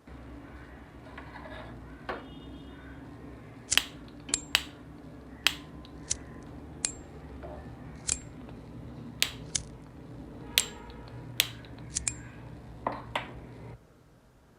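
Gas stove spark igniter clicking again and again at an uneven pace, about a dozen and a half sharp clicks, over a steady low hum that cuts off near the end.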